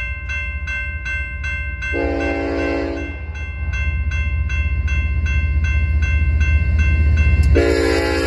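Grade-crossing warning bell ringing steadily, about two and a half strikes a second, as a BNSF freight locomotive approaches. The locomotive's multi-chime horn gives a short blast about two seconds in and starts a longer one near the end, over a low rumble that grows louder.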